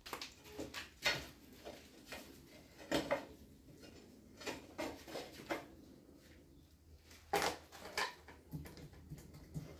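Scattered light metal clinks and knocks of a steel pry bar being worked against the cylinder head of a 1936 Dorman 2RB diesel, levering at a stuck-on head. The sharpest knocks come about one, three and seven and a half seconds in.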